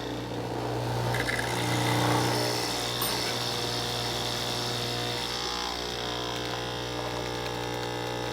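De'Longhi Nespresso Essenza Mini's pump running as it brews an espresso shot: a steady, pretty quiet buzzing hum that swells over the first two seconds, then settles and holds.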